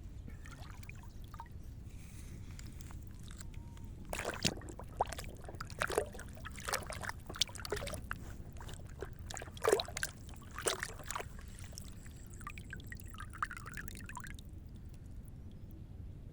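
Irregular knocks and clatter from about four seconds in until about fourteen seconds in, over a steady low hum.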